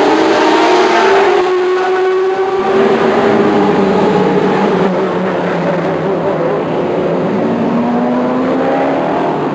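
Sports racing cars' engines running hard past on a street circuit, several engine notes overlapping and gliding up and down in pitch as the cars accelerate and go by. The sound changes abruptly about two and a half seconds in.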